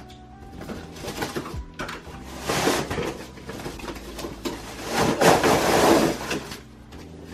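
Cardboard box being opened and a white artificial mini Christmas tree pulled out of it, the tree's branches rustling and scraping against the cardboard, loudest about five seconds in.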